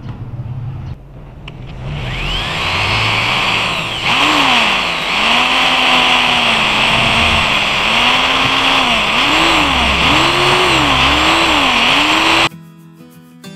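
Electric die grinder with a pointed grinding stone enlarging the hole in a steel washer, running at a high whine whose pitch dips and recovers again and again as the stone is pressed into the metal. It starts about two seconds in and cuts off suddenly near the end, leaving background music.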